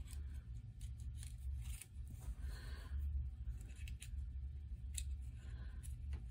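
Faint scattered clicks and brief rustles of thin LED wires and plastic model parts being handled, as the wires are threaded through a hole in a plastic model hull. A low steady hum runs underneath.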